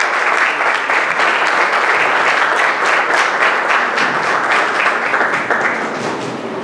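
Audience applauding with many hands clapping, thinning out about six seconds in.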